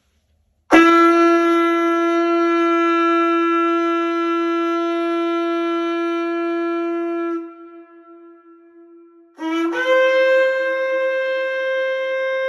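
Shofar sounded in two long blasts: a steady note held for about six and a half seconds, then after a short gap a second blast that jumps up to a higher note and holds.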